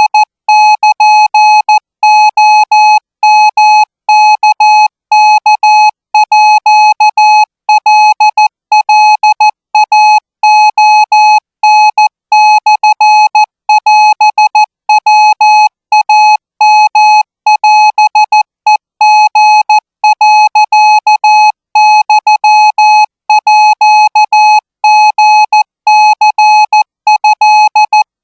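Thai Morse code sent at 20 words per minute: a single high-pitched tone keyed on and off in short dots and longer dashes, with brief gaps between characters.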